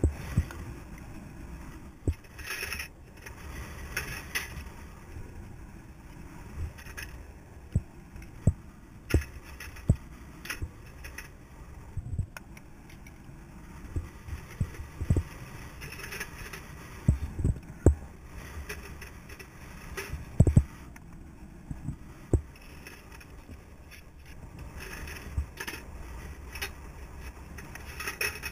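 Metal hand tools clinking and rattling as gloved hands rummage through an open metal cantilever toolbox, with irregular sharp knocks of metal on metal over a steady low rumble.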